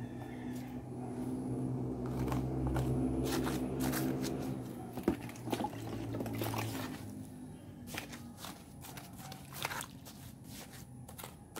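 Small hand trowel scraping and chopping into dry, gravelly soil: a string of short scrapes and clicks. A low droning hum swells over the first few seconds and fades out about seven seconds in.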